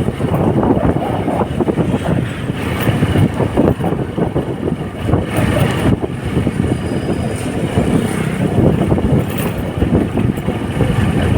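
Small Honda motorcycle engine running while riding, under a steady rushing noise that rises and falls irregularly.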